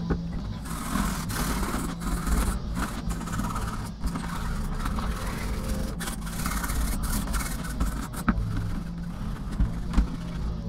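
Microfibre cloth wiping and rubbing over a wet plastic laptop screen bezel, with scraping strokes and a few light knocks as the bezel is handled. A steady low mechanical drone sounds underneath, from construction machinery outside.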